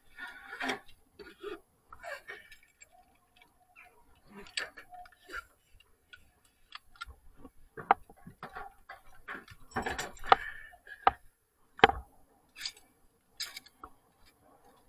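Irregular sharp clicks and knocks, with short rustles between them, as a worker moves about on corrugated steel roof sheeting; the knocks come thickest about two thirds of the way through.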